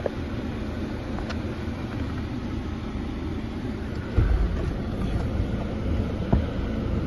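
A car running with a steady low rumble, with a dull thump about four seconds in.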